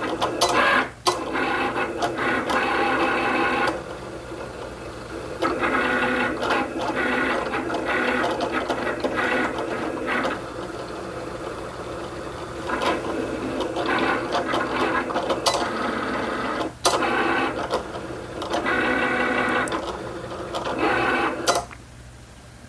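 Cricut Explorer Air 2 cutting machine running a kiss cut on laminated sticker paper. Its motors whir in short runs of changing pitch as the blade carriage and mat move back and forth, with clicks between moves. It goes much quieter near the end.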